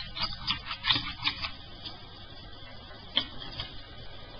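Light clicks and taps of small plastic toy parts being handled and set down on a table: a quick run of them in the first second and a half, then a single click about three seconds in.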